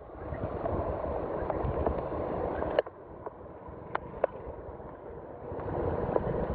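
Heavy rain pouring down on a flooded street, a steady hiss with gusty wind rumbling on the microphone. There are a few sharp clicks, one about three seconds in, after which it briefly drops quieter.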